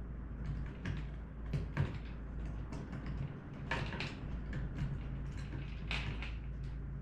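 Light metal clicks and scrapes of a small steel chain being handled as a link is hooked around a screw eyelet and twisted closed, heard as scattered short clicks over a low steady hum.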